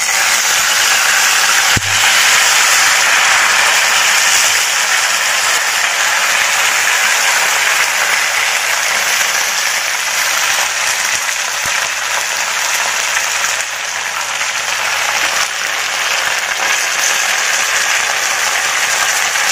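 Wet gongura (sorrel) leaves sizzling and crackling loudly and steadily as they are dropped into hot oil over a fried tempering in a pan, with one sharp click about two seconds in.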